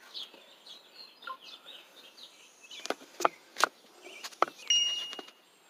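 Small birds chirping in the background. From about three seconds in come several sharp knocks and clicks close to the microphone as the camera is reached for and handled, with a short steady high tone near the end.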